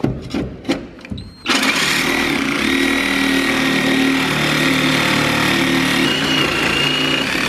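A few knocks, then about a second and a half in a handheld power cutting tool starts and runs steadily with a high whine for about six seconds, cutting free a stuck bolt.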